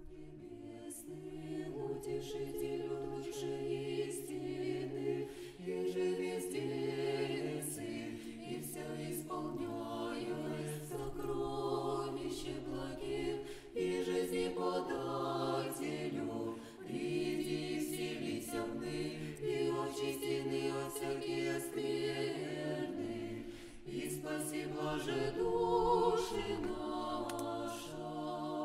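A cappella choir singing slow, sustained chords, the harmony shifting every few seconds over a low bass voice.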